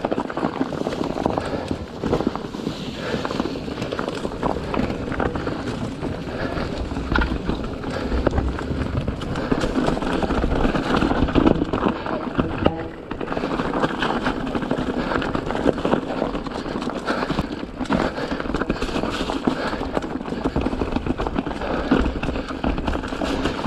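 Full-suspension mountain bike rolling over rocky trail, heard from the rider's chest: a continuous clatter of tyres knocking on rocks, the chain slapping and the frame rattling.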